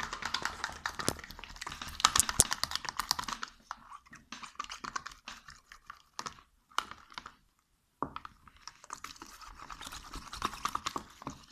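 Sticks stirring liquid soap fast in a plastic tub, a rapid clicking and scraping against the container, with a short break about two thirds of the way through.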